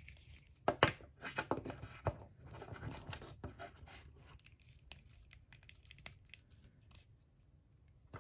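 Handling noise from a jointed blank-body action figure being posed by hand: scattered light clicks of its plastic joints and soft rubbing, with a cluster of sharp clicks about a second in and more a few seconds later.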